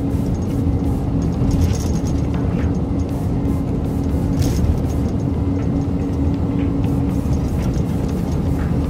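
Steady road and engine rumble inside a truck cab cruising at highway speed, with a constant low hum.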